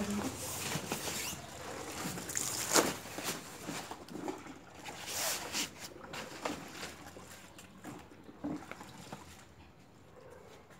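Rustling and light knocks as a padded mattress board is laid into the base of a mesh baby playpen and pressed flat, with one sharper knock about three seconds in; the handling noise fades toward the end.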